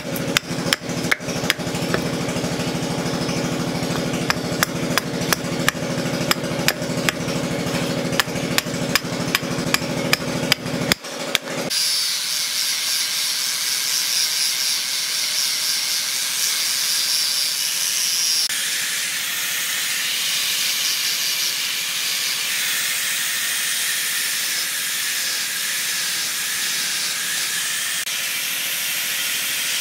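A hatchet chopping into a block of wooden root on a stump, about two blows a second, for the first eleven seconds. Then an electric angle grinder with a sanding disc runs against the wood with a steady high whine and hiss, its tone shifting about eighteen seconds in.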